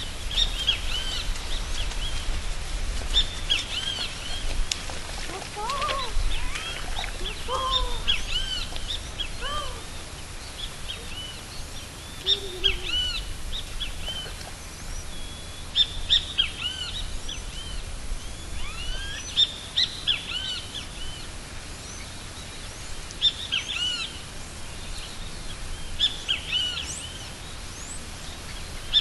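Many birds chirping in clusters of quick, high, arching notes that come and go every few seconds, with a few lower calls between about 6 and 13 seconds in.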